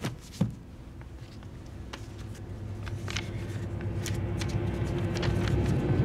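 Scattered sharp clicks and knocks, the loudest about half a second in, over a held tone and a low drone that swells through the second half.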